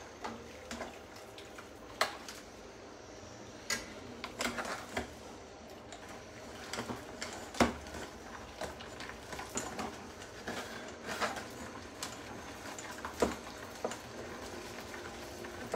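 Metal ladle clinking and knocking now and then against the pots and a mesh strainer as fish soup is ladled and strained, over a steady low hiss.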